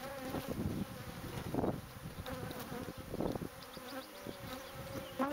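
Honeybees from an opened colony buzzing en masse: a steady hum, with louder swells every second or so.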